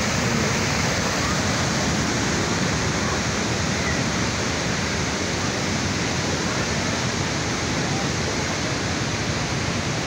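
Fast whitewater river pouring over a concrete weir and rushing along a concrete channel: a loud, steady rush of water.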